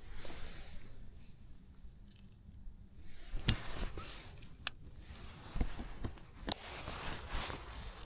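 Rustling with a few scattered sharp clicks, as of things being handled close by.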